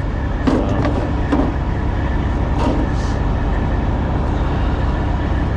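Steady low rumble of an idling diesel truck engine, with a few brief clicks and knocks in the first few seconds.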